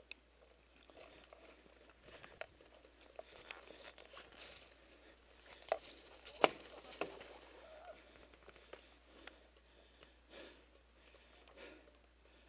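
Footsteps and body pushing through dry scrub: leaves and twigs crackling and brushing, with a few sharper snaps about six to seven seconds in.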